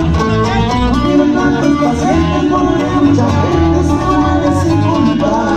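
Live band playing loud on stage, with guitar over drums and bass at a steady level.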